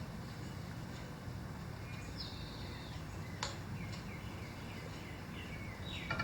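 Light clicks of a metal wheel bushing being fitted into a scooter's front hub, over a steady low hum, with a few short high chirps.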